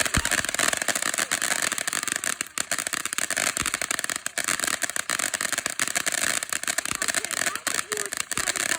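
Ground fountain firework spraying sparks with a dense, rapid crackle over a steady hiss.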